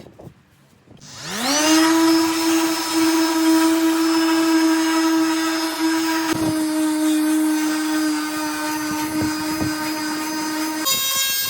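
Electric power tool motor spinning up about a second in, then running at a steady high pitch with a few brief dips. Near the end it switches abruptly to a different steady tone.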